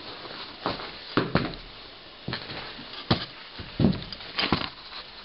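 Footsteps crunching on packed snow: short, uneven crunches, roughly two a second.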